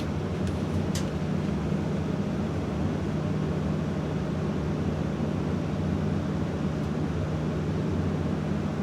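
2021 Carrier gas furnace's blower fan running steadily on its own after the burner has shut off, with the inducer stopped. This is the fan's timed run-on before it cuts off. There is a steady low hum under the airflow, and a brief click about a second in.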